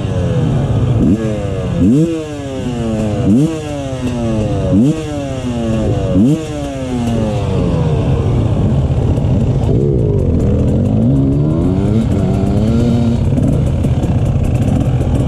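Two-stroke enduro motorcycle engine being blipped on the throttle at a standstill: about six quick revs, each rising sharply and falling away, roughly every second and a half, then settling to a running idle with lighter wavering revs.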